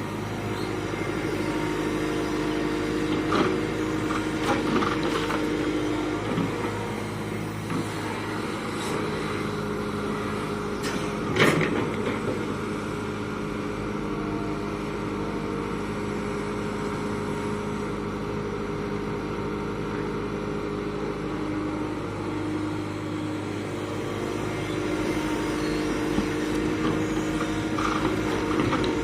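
Excavator diesel engine running steadily while working, with a few knocks, the loudest near the middle.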